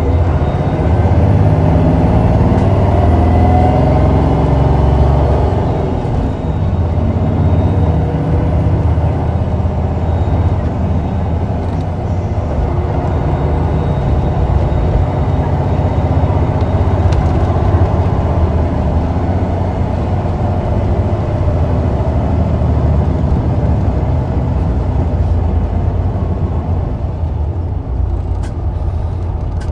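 Hino Blue Ribbon II city bus (PKG-KV234L2) diesel engine running and pulling away, a heavy low drone with its pitch climbing as it accelerates in the first few seconds. A faint high whine rises and falls twice during the first ten seconds, and a few sharp clicks come near the end.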